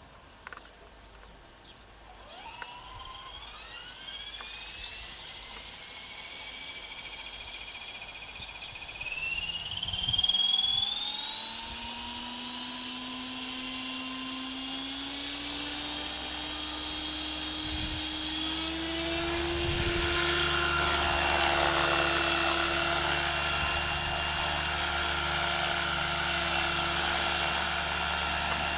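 Align T-Rex 500 electric RC helicopter with a Scorpion brushless motor spooling up from rest. A whine starts about two seconds in and climbs steadily in pitch and loudness as the rotor gathers speed, then holds steady at flying speed for the last third.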